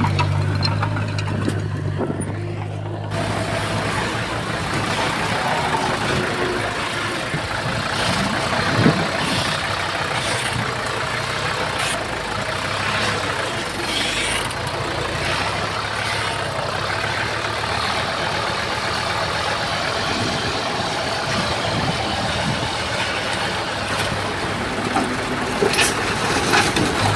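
Heavy earthmoving machinery at work: diesel engines running steadily, with scattered clanks and knocks.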